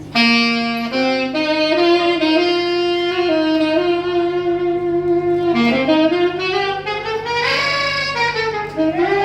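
Solo saxophone playing a slow melody, holding long notes and sliding up in pitch over a couple of seconds, then bending back down near the end.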